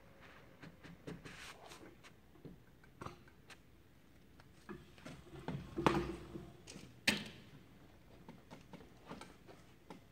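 Scattered light knocks, taps and rubbing as hand tools are handled against a wooden canoe hull, with two louder knocks about six and seven seconds in.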